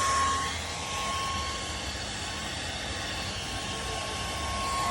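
Electric buffing polisher running with a steady motor whine and hiss; the whine drops away about half a second in and comes back near the end.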